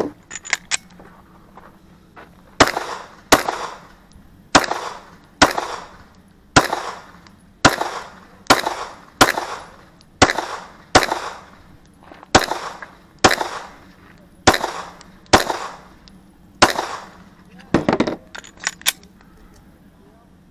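Semi-automatic pistol fired shot by shot, about seventeen sharp shots at roughly one a second with brief gaps between groups, each shot trailing off in a short echo.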